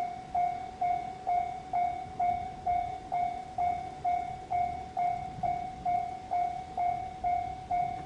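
Japanese railway level-crossing alarm starting to ring, a steady clanging of about two strikes a second. It warns of an approaching train.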